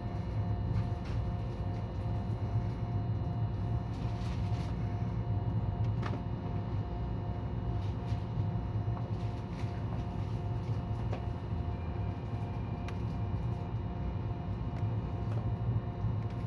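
Inside the passenger car of a JR West 223 series 2000 electric train while it is running: a steady low rumble, with a faint pulsing tone and a few light clicks over it.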